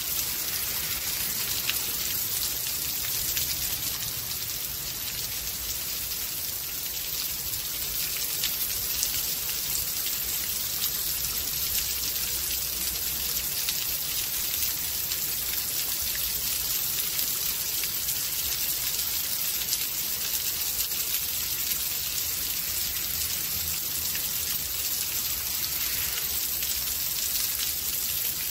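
Steady rain falling in a storm: an even, high hiss of many drops with countless single drop ticks, and no let-up.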